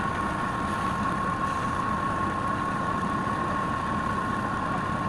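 Electric wood lathe running steadily, a constant motor hum with a high whine held at one pitch.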